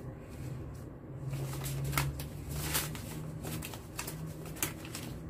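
Paper red envelopes rustling and tapping together as they are handled and gathered into a stack, a run of short crisp rustles, over a low steady hum.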